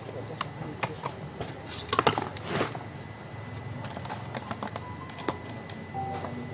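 Steel gearbox gears and parts clinking and clicking against each other as they are handled and fitted by hand, with a cluster of louder metal knocks about two seconds in; the reverse idler gear is being slid onto its shaft.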